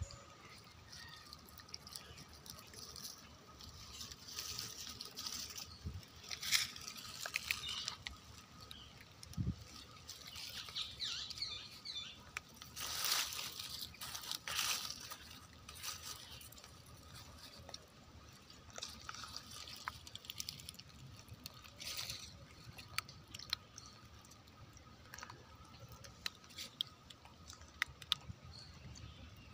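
Soft crunches, clicks and rustles close to the microphone from macaques moving and handling things around it, scattered unevenly, with a few louder bursts of rustling. A faint steady tone sits underneath.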